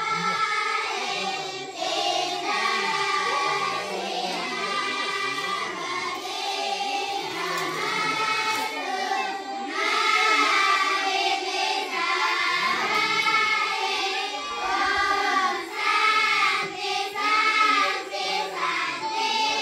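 Music with a group of voices singing together, children's voices among them.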